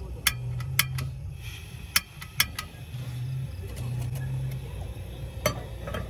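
A handful of sharp, separate clicks from the piezo igniter of a small folding canister camping stove being lit until the burner catches. A low hum comes and goes underneath.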